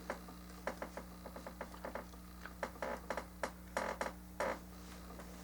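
Small plastic model-kit parts being handled and pushed together: a scatter of light, irregular clicks and taps, with a couple of brief scraping sounds a little past the middle, over a faint steady hum.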